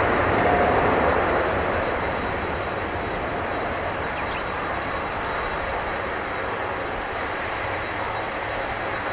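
Boeing 777-300ER's twin GE90 turbofans running at high thrust on the takeoff roll, a steady broad jet roar. It is loudest in the first second or so, then eases a little as the aircraft draws away.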